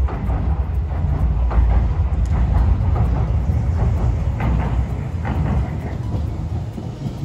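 Hiroshima Electric Railway streetcar running past: a steady low rumble with scattered clicks and rattles of wheels on the rails.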